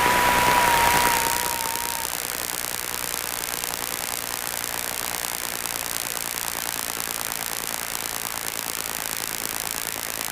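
Steady hiss of engine and airflow noise in a Zenith 601XL-B light aircraft on final approach, picked up through the headset intercom. A single steady high tone wavers and stops about two seconds in.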